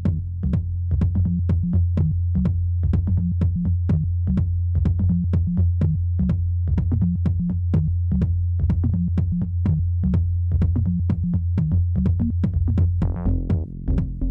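Electronic dance music with a drum-machine beat and a heavy steady bass.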